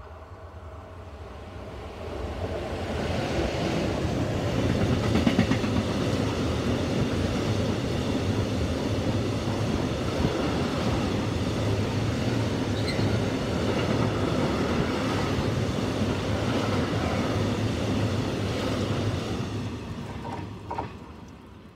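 A freight train of tank wagons, led by a Traxx locomotive, passes close by: a steady rumble of wheels rolling on the rails. It swells about two seconds in as the locomotive arrives, is loudest around five seconds, holds steady while the wagons roll past, and fades near the end once the last wagon has gone.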